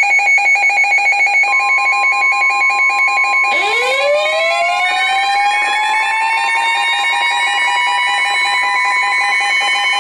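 Layered emergency alert sounds between two broadcast warnings. An electronic alarm beeps rapidly, about four beeps a second, and a steady alert tone joins about a second and a half in. Then a siren winds up from a low pitch about three and a half seconds in and holds near its top pitch.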